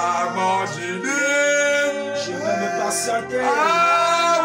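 A man singing a French worship chorus, drawing out long held notes that bend up and down in pitch.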